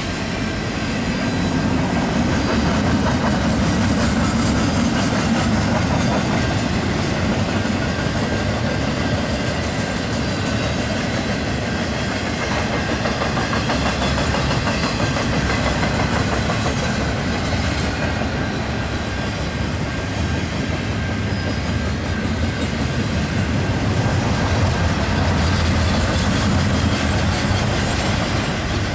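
Double-stack container well cars of a freight train rolling past at steady speed: the steel wheels running on the rails make a continuous noise that swells a little near the start and near the end.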